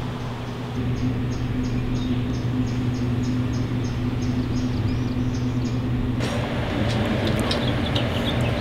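A steady low mechanical hum runs throughout, with a faint high chirping pulsing about four times a second over it for the first few seconds. About six seconds in, the background turns brighter and noisier, with scattered clicks.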